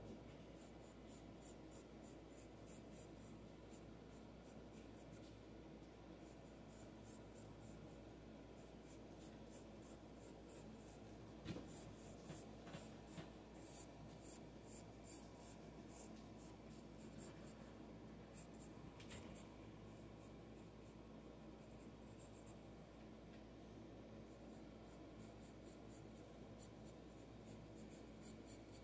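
Graphite pencil scratching faintly across paper in quick, repeated sketching strokes, with a few louder ticks about halfway through.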